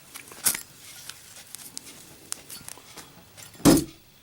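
Lit Zippo lighter (brushed chrome case, steel insert) in a drop test: a sharp metallic click about half a second in and a few faint ticks, then one loud clatter as it lands, about three and a half seconds in.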